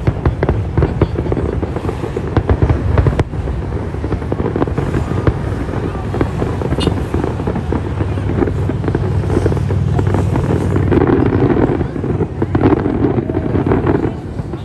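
Aerial fireworks display: shells bursting in a dense run of bangs and crackles for the first three seconds or so, then thinning to a rumbling background with scattered pops.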